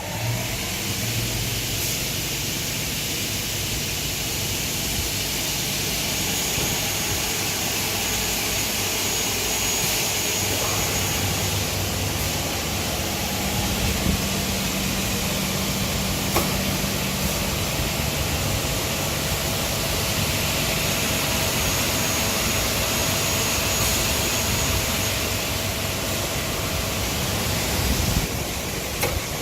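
Double-head CNC aluminium cutting saw running through its operating cycle: a loud, steady machine noise from the motors and circular saw blades, with a thin high whine that comes in twice and a few short clicks.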